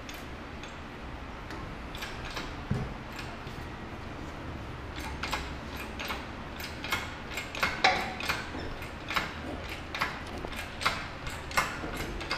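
Engine hoist lifting a Ford 200 inline-six engine on its chain: light metallic clicks, about two a second, from about five seconds in, after a single knock a few seconds earlier, over a low steady hum.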